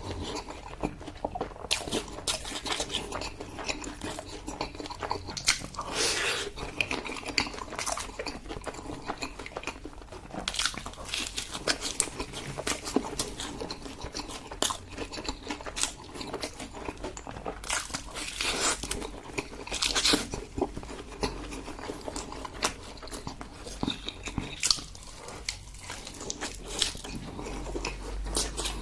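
Close-miked eating sounds of a person biting and chewing braised pork leg, with frequent sharp clicks and smacks.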